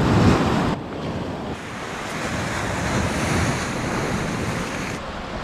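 Sea waves surging and washing over rocks, with wind buffeting the microphone.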